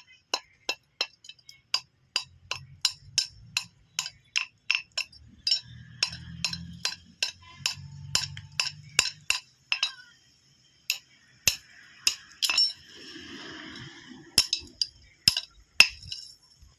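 A hammer striking a 12 mm iron bar with sharp, ringing metallic clinks, about two or three blows a second, then a short pause and a few more scattered blows.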